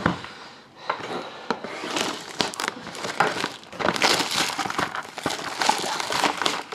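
Plastic shrink wrap on a sealed trading-card box crinkling and crackling irregularly under the hands. It starts about a second in.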